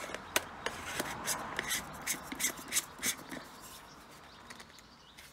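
Hands screwing the two plastic halves of an InkBird IBS-P01R floating pool thermometer back together: a quick run of plastic clicks and rubbing that dies down after about three and a half seconds.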